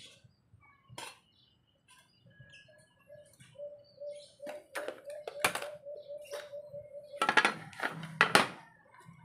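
Camp cookware being handled on a tabletop: light clicks and knocks as the kettle is set on the stove, then a loud clatter of the aluminium mess tin being opened near the end. A pulsing bird call runs through the middle.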